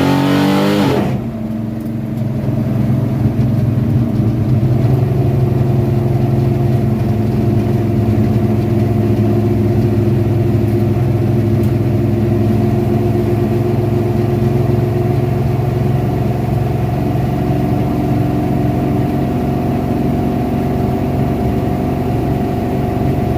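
Car engine running hard at high revs, then backing off sharply about a second in and settling into a steady lower-rev drone.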